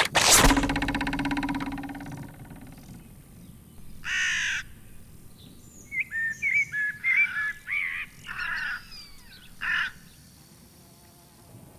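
A loud hit with a low ringing hum that fades out, then a harsh caw-like call about four seconds in. After that comes a run of short squawking, chirping calls with piping notes, like cartoon animal voices.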